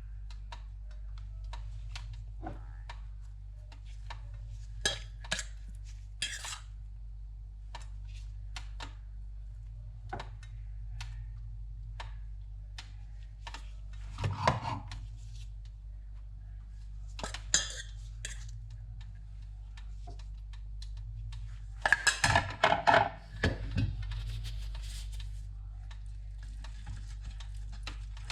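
Kitchen utensils and dishes clinking and tapping in scattered, irregular strokes, with a few busier clusters of clatter, over a steady low hum.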